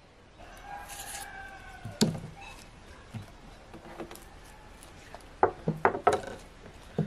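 Dishes and a knife knocking on a wooden table as they are handled: one sharp knock about two seconds in, then a quick run of knocks and clatter near the end.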